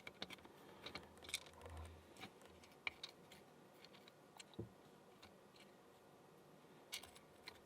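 Faint, scattered small clicks and ticks of tiny lock pins and springs being handled and set down as they are sorted.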